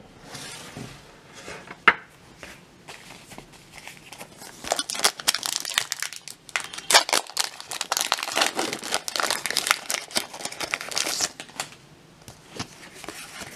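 Trading-card booster pack wrapper being peeled and torn open by hand, crackling in quick bursts for several seconds from about four seconds in. One sharp tap comes about two seconds in.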